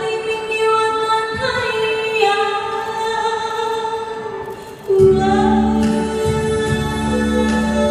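A woman singing a slow, lyrical song into a microphone, holding long notes with gentle slides between them. About five seconds in, the accompaniment comes in much louder with a deep bass.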